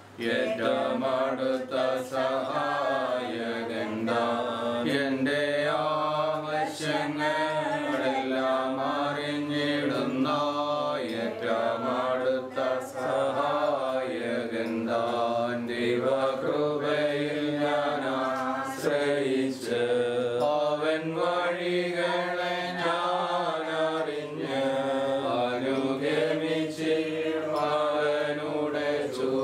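Voices chanting a slow, drawn-out hymn melody, each note held and gliding into the next.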